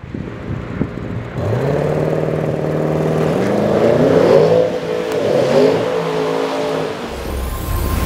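Audi S8's twin-turbo 4.0 V8 accelerating hard. The engine note climbs steadily from about a second and a half in, drops once at a gear change, climbs again, then fades out near the end.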